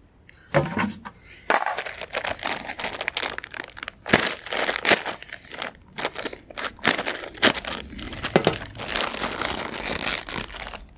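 Clear plastic bag crinkling and crackling as gloved hands grip, squeeze and shift it, in many short irregular rustles.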